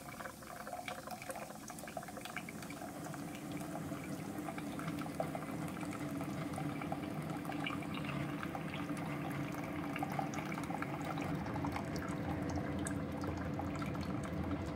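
Keurig K-Supreme coffee maker running a rinse-pod cleaning brew: a thin stream of hot water splashes into a plastic measuring cup over the machine's steady hum. It grows slightly louder as it goes.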